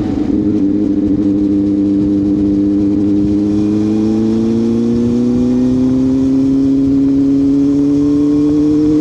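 CFMoto 500SR Voom's parallel-twin engine through an SC Project carbon slip-on exhaust, the revs climbing slowly and steadily as the bike accelerates.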